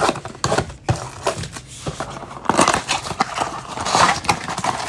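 Trading cards and a foil card pack being handled: a run of quick sharp clicks and flicks as cards are thumbed through, then a denser crinkling rustle of wrapper from about two and a half seconds in.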